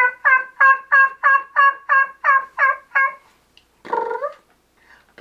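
A man imitating a wild turkey: a run of about a dozen short calls, about three a second, each dropping in pitch, then a single rougher call near the end.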